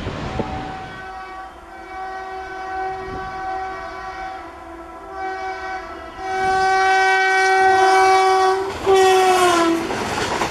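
Indian Railways locomotive horn blowing long blasts, a chord of several tones, loudest in the second half. Near the end the pitch slides down as the horn passes by.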